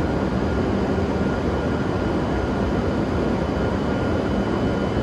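Steady running noise of a W7-series Shinkansen trainset standing at the platform with its doors open, its onboard equipment running, with a faint steady high whine over it.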